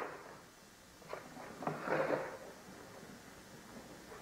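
A few light knocks and a short clatter: a wooden cabinet door and a small plastic pail being handled. There is a sharp knock at the start, a small click about a second in, and a brief noisy clatter around two seconds in.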